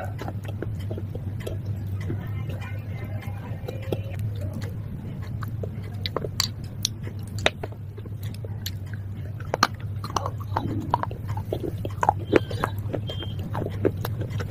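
Close-up biting and chewing of hard, brittle pieces of baked clay pot and slate pencil: a run of sharp, irregular crunches that grows busier past the middle, over a steady low hum.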